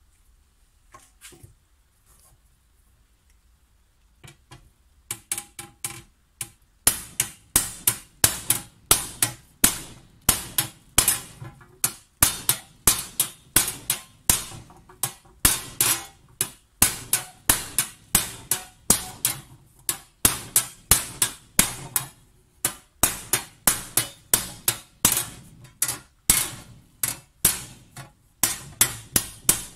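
Hammer blows on a copper sheet held over a wooden post, raising the rim of a copper tray. Sharp, ringing strikes start about five seconds in and go on at a steady two to three a second, with a couple of brief pauses.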